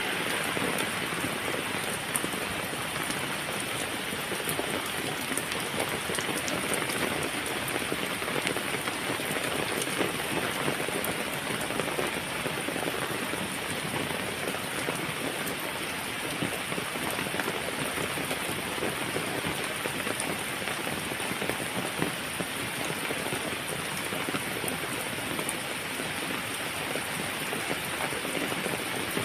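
Steady heavy rain falling on a surface, a dense even patter of raindrops with fine individual drop ticks.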